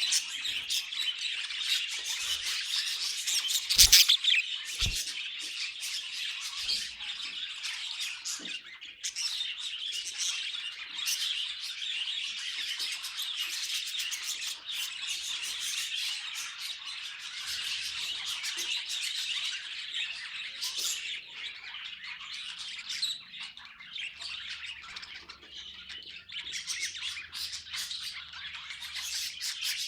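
Budgies chattering, chirping and squawking without a break, with two sharp knocks about four and five seconds in.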